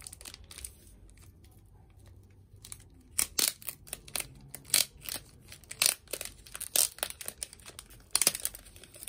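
Clear plastic wrapping crinkling and tearing as it is pulled off a flat package. After a quiet start, a string of sharp crackles begins about three seconds in, coming every half second or so.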